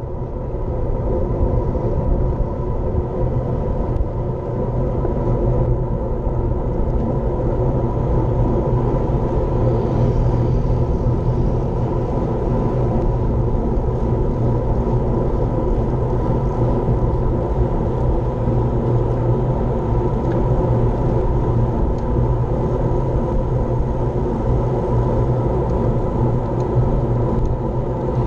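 Steady wind rumble over an action camera's microphone on a road bicycle riding at speed, with the hum of tyres on tarmac underneath.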